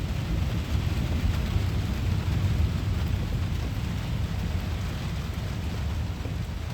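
Steady rain and strong wind of a severe thunderstorm, heavy in the low end with a deep rumble.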